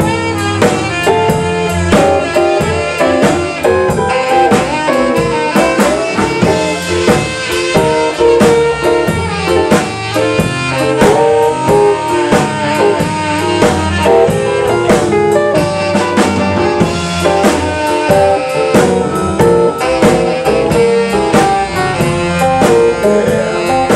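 Live band music: a saxophone playing over electric bass guitar and a drum kit, with a steady beat.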